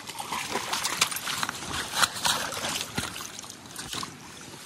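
A hooked coho salmon thrashing and splashing in shallow water as it is brought up onto a gravel bank: a run of irregular splashes and slaps, the sharpest about one and two seconds in.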